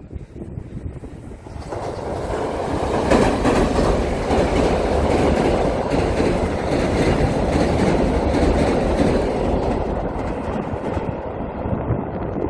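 Mugunghwa-ho passenger train crossing a steel-girder railway bridge: wheels clacking over the rails and the bridge deck rumbling, building up over the first couple of seconds and easing off near the end as the train moves away.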